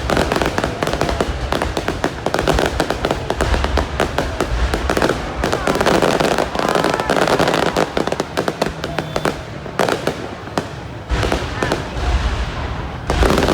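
A fireworks display: rapid crackling and popping of aerial shells with heavy low booms, dense and continuous.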